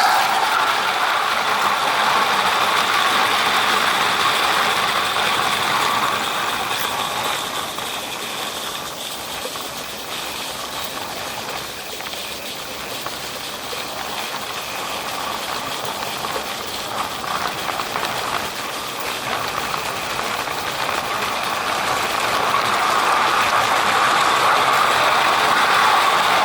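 A 16mm-scale live-steam garden railway locomotive running with its train on 32 mm gauge track. It makes a steady mechanical running sound that drops away in the middle and grows louder again near the end.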